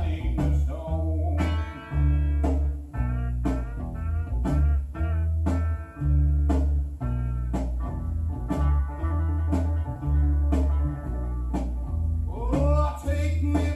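Instrumental stretch of blues music: guitar over a heavy, pulsing bass line and regular drum hits.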